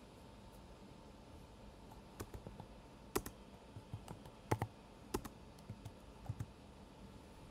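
Typing on a computer keyboard: a dozen or so scattered key clicks, the loudest about three and four and a half seconds in, over a faint steady hum.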